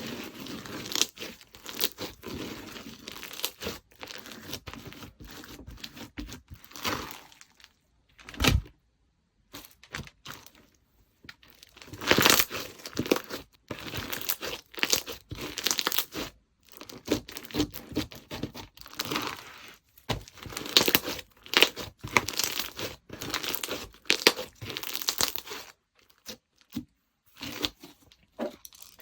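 Slime being squished, stretched and pressed by hand: irregular sticky crackling and popping clicks, with a near-quiet pause of a few seconds about a third of the way through.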